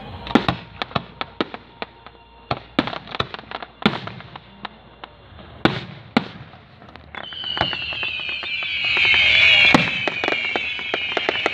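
Fireworks display: a rapid, irregular string of sharp bangs and pops from bursting shells. About seven seconds in, a loud whistling hiss that falls slightly in pitch rises over the continuing pops.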